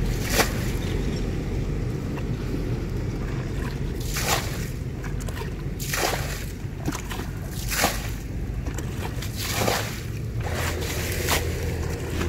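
Muddy pond water sloshing and pouring as a plastic bucket bails it out and throws it over the bank, with a louder splash about every one and a half to two seconds as each bucketful is dumped.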